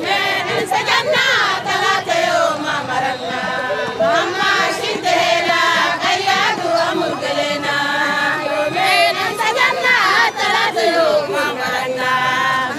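A crowd of women and girls singing a popular chant together, many voices at once.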